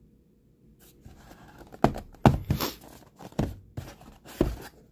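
Cardboard knife box being handled and opened by hand: a string of sharp knocks and papery scrapes, starting about a second in.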